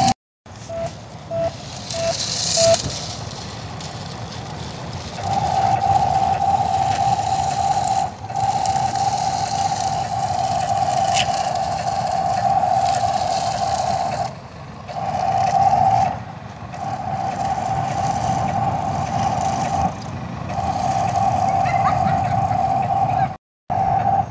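Electric drive of an RC drift car whining at one steady pitch, first in a few short blips and then in long held stretches with brief breaks, over a continuous rushing noise.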